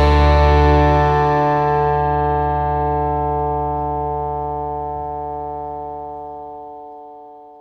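Background music ends on a held chord that rings on and slowly fades out.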